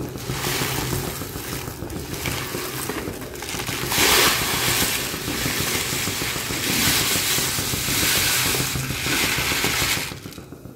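A plastic mix packet crinkling as falooda mix is shaken out of it into boiling milk, with a silicone spatula stirring and scraping in the pan. A rough, uneven noise that swells about four seconds in and dies away at the end.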